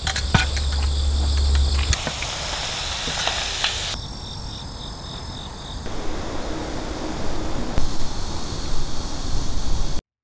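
Outdoor ambience of insects chirping, with steady high-pitched trilling and a pulsing chirp in the middle. The background changes abruptly every couple of seconds, with a low rumble and a few clicks in the first two seconds.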